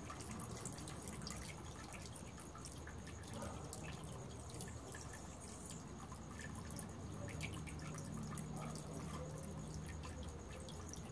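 Faint background ambience: scattered light ticks like dripping water over a low steady hum.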